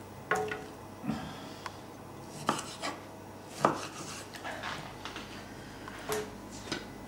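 Kitchen knife slicing tomatoes on a wooden chopping board, with short, irregular knocks of the blade against the board and of tomato pieces dropped into a plastic blender jug.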